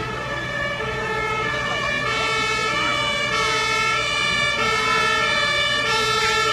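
Fire brigade vehicle's two-tone siren (German Martinshorn) alternating between two pitches and getting louder as the vehicle approaches, over a low engine hum.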